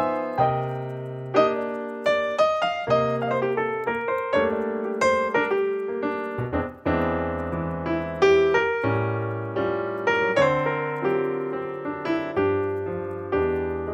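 Solo piano background music, a gentle melody of struck notes that ring and fade, several notes a second, with a brief dip a little past the middle.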